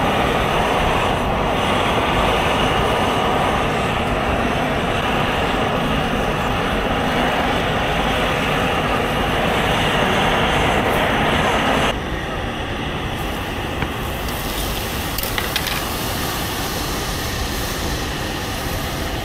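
Dense crowd hubbub of a busy open-air market, many voices blending into a steady murmur. About twelve seconds in it changes abruptly to a somewhat quieter crowd murmur with a few faint clicks.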